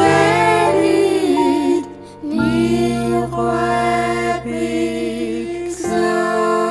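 Background music: a soft, slow instrumental passage with held chords over a bass line. The chords change about two seconds in and again near the end.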